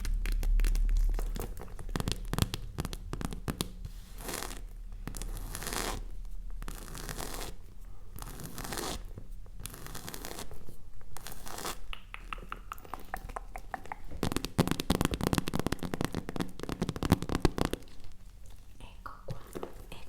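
Close-miked ASMR handling sounds: irregular crinkling, rustling and tapping on packaging and objects, densest in a scratchy, crackling run from about two-thirds of the way in.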